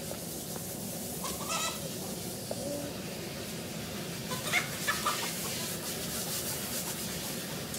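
Meat chickens clucking in a wire pen under a tarp as one is caught, with short squawks about a second and a half in and again around four and a half to five seconds.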